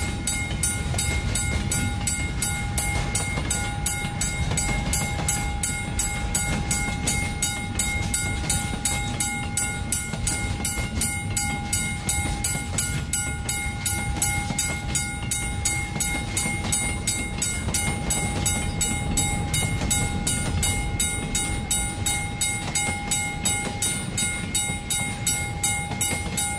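Recorded sound of a running train: a dense rumbling clatter with a quick regular beat of about three a second, and a steady whine of several held tones above it.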